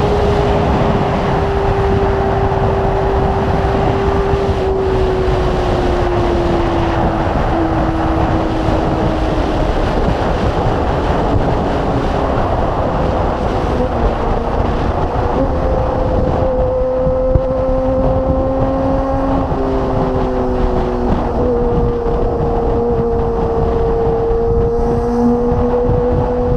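Kawasaki ZX-25R's 249 cc inline-four engine running at high revs through a Magna aftermarket exhaust while riding, with wind rush on the bike-mounted microphone. The engine note sinks slowly over the first several seconds, then steps up and holds higher in the second half.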